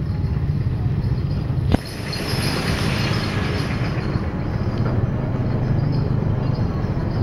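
Motorcycle engine running steadily at low speed. A single sharp click comes a little under two seconds in.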